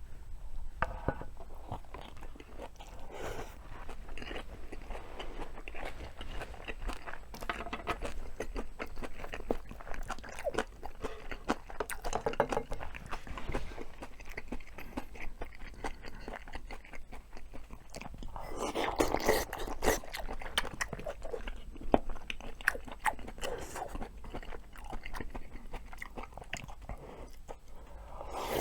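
Close-miked chewing and eating of bibimbap and kimchi stew: many short wet clicks and bites from the mouth, busiest about two-thirds of the way through.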